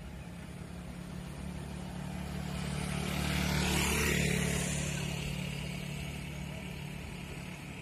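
Motorbike passing on an open road: its engine and tyres swell to loudest about four seconds in, then fade, over a steady low hum of distant traffic.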